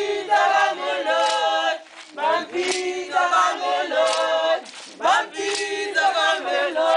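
Choir singing a cappella, several voices together in phrases of a second or two with short breaks between.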